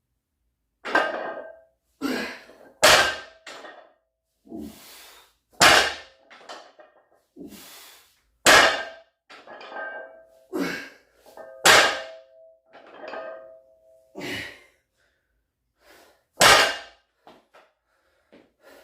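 Loaded barbell plates clanging and thudding against the floor as each deadlift rep is set down, about eight sharp hits with a short metallic ring. Hard breaths can be heard between the reps.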